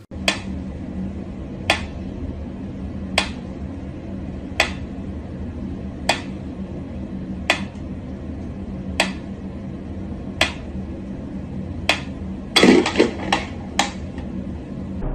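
Mechanical pyramid metronome ticking slowly and evenly, about one tick every second and a half. Near the end comes a quick cluster of louder knocks and clatter.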